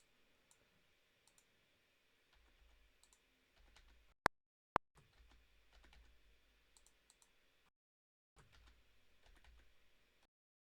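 Faint computer mouse clicks and keyboard taps, scattered and irregular. Two sharper, louder clicks about half a second apart come a little before the middle.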